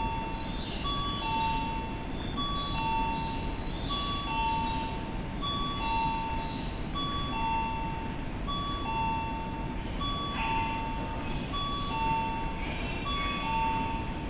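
Railway platform train-approach warning chime: a two-note electronic chime, a short high note then a longer lower one, repeating evenly a little faster than once a second, over steady station background noise.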